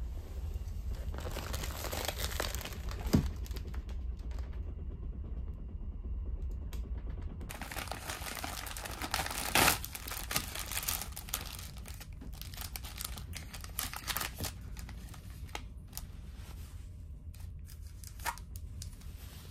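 Plastic packaging crinkling and rustling as wrapped towels and toiletries are handled and unwrapped, loudest about eight to eleven seconds in, with a few light taps as items are set down. A steady low hum runs underneath.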